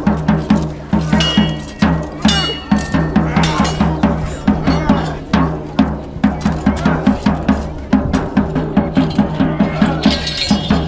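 A drum beaten in a fast, steady rhythm of low, pitched strokes. Two short ringing clangs come about one and two seconds in.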